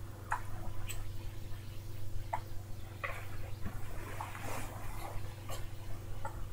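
A baby hiccuping: several short, sudden hiccups a second or so apart, over a steady low hum.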